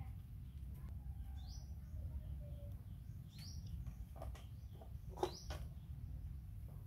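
A bird calling three times, one short high note about every two seconds, over a steady low rumble. A single sharp knock about five seconds in.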